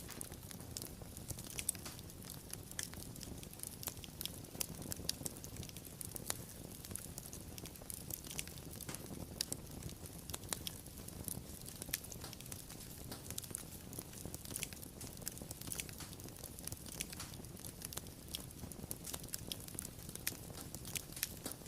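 Wood fire crackling, with frequent sharp pops and snaps spread unevenly over a low, steady rumble of burning.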